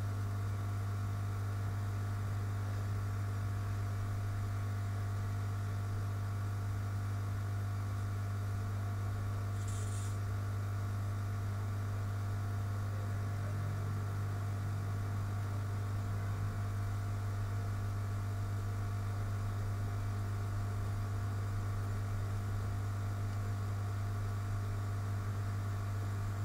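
Steady electrical hum with a strong low tone, unchanging throughout, and a brief faint hiss about ten seconds in.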